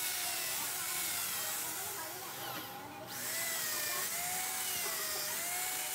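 A handheld drill-type power tool running down in an engine cylinder head's valve bores, with a whine that wavers in pitch. The sound dips briefly about two and a half seconds in.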